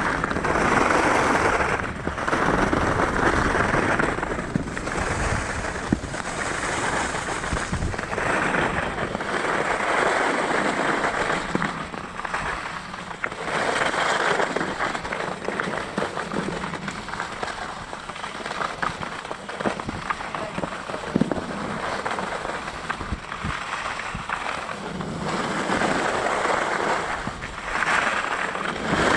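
Skis scraping and hissing over firm groomed piste snow, swelling and fading in waves every couple of seconds as the skier turns, with short crackles from the hard snow.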